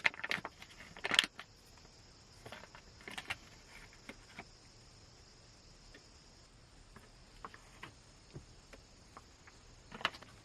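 Campfire crackling: irregular sharp pops and clicks, a dense run of them in the first second and another cluster a few seconds in, then only scattered ones, over a faint steady high hiss that fades about two-thirds of the way through.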